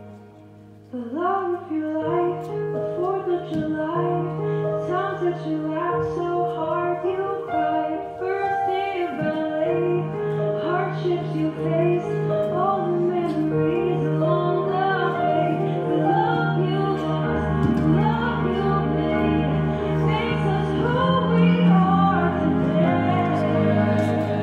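Recorded song with a female voice singing a melody over sustained instrumental backing, coming in after a quiet first second.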